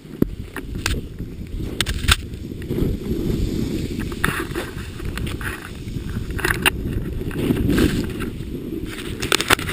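Wind buffeting a pole-held camera's microphone as a snowboard slides through deep powder: a steady low rumble, with scattered sharp clicks and knocks and a cluster of them near the end.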